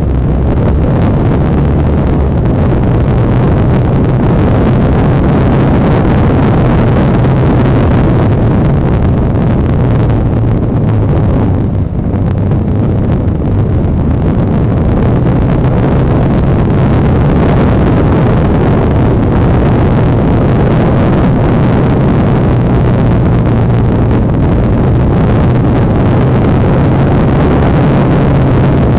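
Honda Dominator NX650's single-cylinder four-stroke engine running steadily as the bike is ridden, with wind noise over the microphone. The engine eases off briefly about twelve seconds in, then picks up again.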